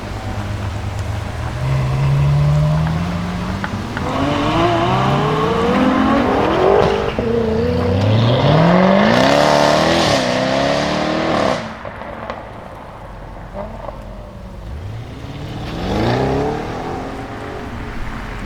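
Jaguar F-Type SVR's supercharged V8 accelerating hard, its exhaust note climbing in several steps through the gear changes, loudest through the middle and dropping away about twelve seconds in. A shorter rise in revs comes about sixteen seconds in.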